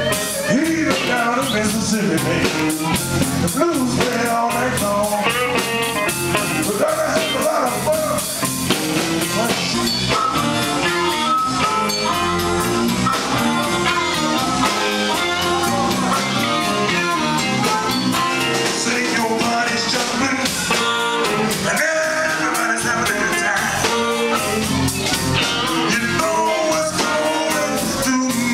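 Live electric blues band playing: electric guitars, electric bass and drum kit at a steady, unbroken level.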